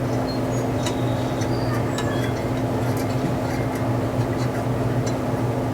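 Steady low electrical hum, with a few light metallic clicks and short clinks from hand tools on a flex plate bolt.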